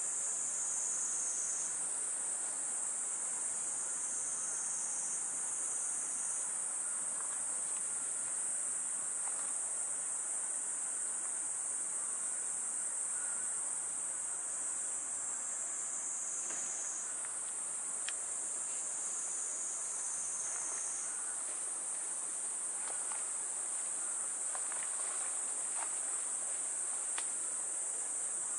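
Summer insect chorus, most likely cicadas: a dense, high-pitched buzzing that runs on without a break and swells and eases every few seconds.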